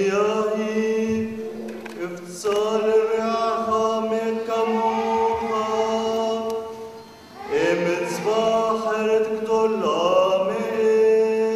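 A man's voice chanting a liturgical text on a steady reciting tone. The notes are long and held, in phrases of a few seconds, with short dips between them.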